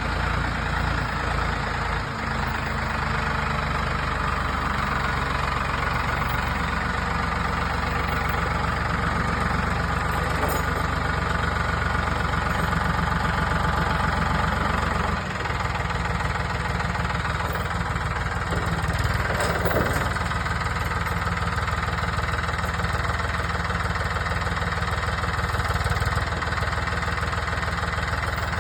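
Skid steer engine running steadily.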